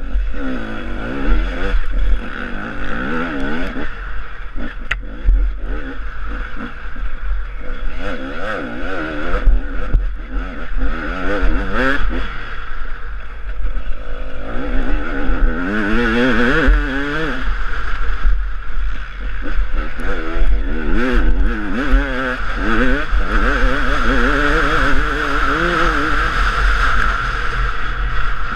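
Husaberg TE 300 single-cylinder two-stroke enduro engine revving up and down continuously as the bike is ridden over rough dirt trail, with heavy wind rumble on the helmet camera.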